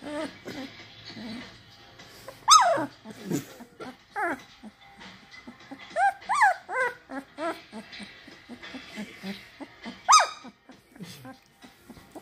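A 16-day-old Cane Corso–blue nose puppy whimpering in short, high cries while being stroked. One loud cry comes about two and a half seconds in, then a run of short squeaky whimpers around six to seven seconds, and another loud cry near ten seconds.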